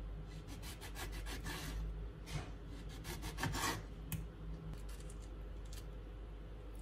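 A kitchen knife sawing through a grapefruit on a wooden cutting board: a run of short scraping strokes over the first four seconds or so, then a few light clicks of the blade as the rind is cut away.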